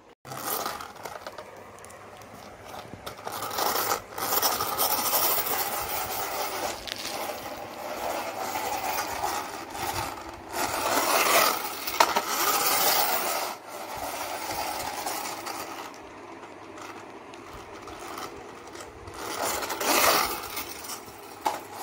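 Plastic toy car pushed back and forth by hand over a tiled floor, its wheels rolling with a scraping rasp that swells and fades in spells.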